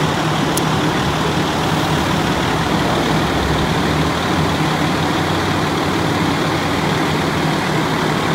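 Fire engine's diesel engine idling, a steady, unchanging low drone.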